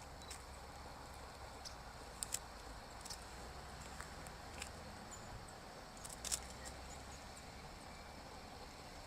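Faint steady outdoor hiss with scattered sharp clicks, the loudest a little after six seconds.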